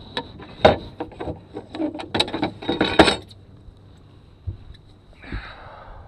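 Handling noise on a chest-mounted camera: a run of sharp knocks and scuffs over the first three seconds as the wearer moves about the boat, then a short rustle of clothing rubbing over the microphone about five seconds in.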